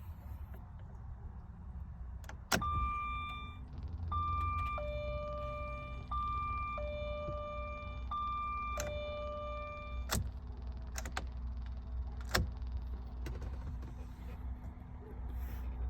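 A 2004 Jaguar XJR's electronic warning chime sounds after a sharp click, alternating a high and a low note for about seven seconds. It ends with another click, and a further click follows. No starter motor or engine is heard: the car does not crank.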